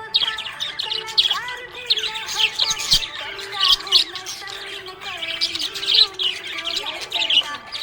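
Budgerigars chirping continuously: a dense stream of quick, high chirps mixed with lower, wavering warble notes.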